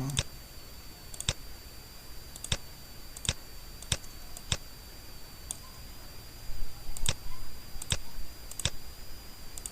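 Computer mouse button clicks, about ten single clicks at irregular intervals of roughly one second, made while selecting faces in 3D software. A faint steady high-pitched whine runs underneath.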